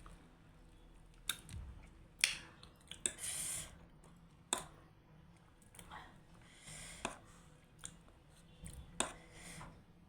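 Close-up eating sounds: wet chewing with several sharp mouth clicks and smacks, and a couple of short hissy slurps.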